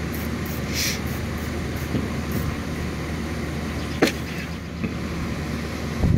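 Steady low drone of a screened package of honeybees, with a brief scrape about a second in and one sharp knock about four seconds in as the wooden cover board of the package is handled.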